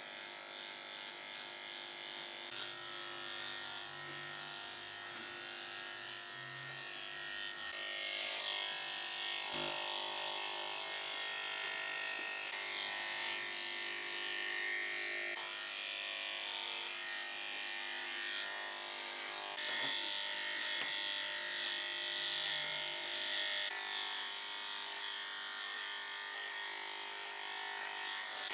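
A small electric motor runs steadily with a buzzing hum, getting louder about eight seconds in.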